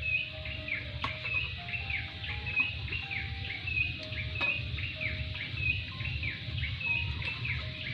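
Bird chirping: a short, high, falling chirp repeated about twice a second, over soft background music of held notes that step up and down in pitch.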